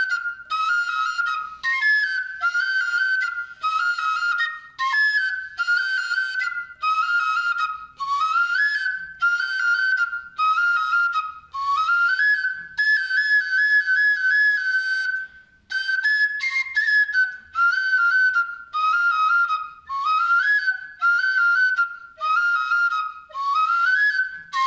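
Carrizo doble, a seven-hole cane flute (six holes in front, one behind), playing a complete traditional song: a run of short, repeated phrases of high notes about a second each, many opening with an upward slide.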